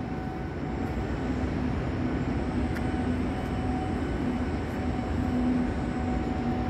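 Steady construction-site din: a low, even rumble with a faint machine hum over it and an occasional faint click.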